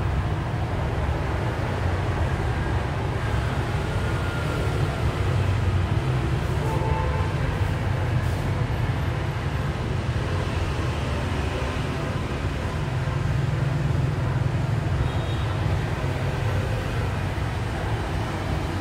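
Steady low rumble of street traffic, with a few faint short toots now and then.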